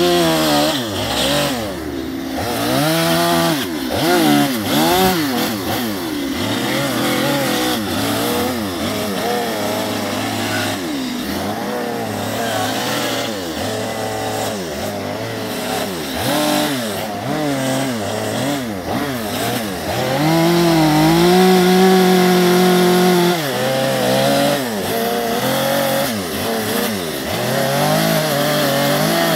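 Two-stroke chainsaw cutting into a western red cedar log, its engine revving up and dropping back over and over as it makes short carving cuts, with one longer steady high rev about two-thirds of the way through.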